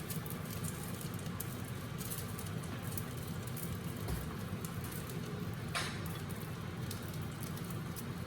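Tofu skin frying in hot oil, a steady sizzle with fine crackles throughout and a sharper click about six seconds in.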